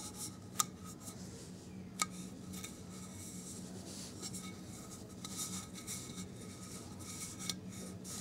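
Fingers rubbing and handling a metal HHO electrolysis cell as it is turned in the hand, with a few sharp clicks, the loudest about half a second and two seconds in, over a steady low hum.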